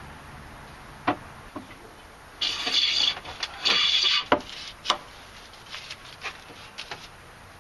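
Two strokes of a long wooden hand plane along the edge of a board, each a short hiss of the shaving being cut, about two and a half and three and a half seconds in. Sharp wooden knocks and clicks from handling the plane and the timber come before and after the strokes.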